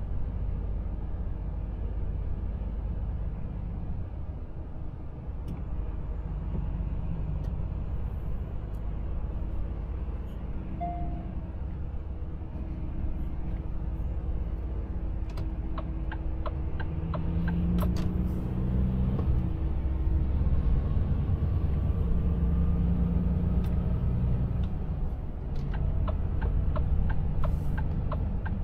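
A Volvo FH Aero truck's diesel engine and tyre noise, heard from inside the cab as the truck picks up speed on a wet road. The engine drone grows louder in the second half. Short runs of light clicks come about two-thirds in and again near the end.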